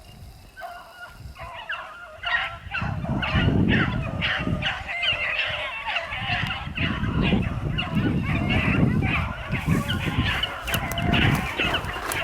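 A pack of beagles baying on a rabbit chase: many short, overlapping cries that thicken after the first couple of seconds, with a low rumble underneath.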